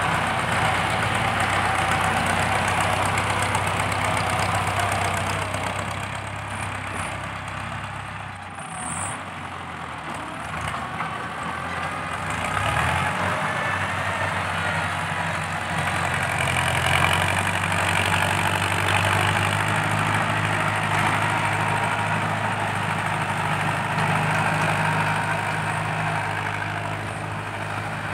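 Ford 6640 tractor's diesel engine working as its front blade pushes soil, with a loud, fierce exhaust note from its upright stack. It fades somewhat about a third of the way in as the tractor moves off, then grows louder again.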